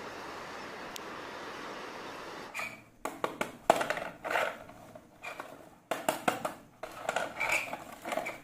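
A steady rushing outdoor noise from a passenger ferry coming into harbour. About two and a half seconds in it cuts to the irregular clicks, knocks and scrapes of a plastic toy boat being handled and pushed on a mat, with one sharp knock about a second later.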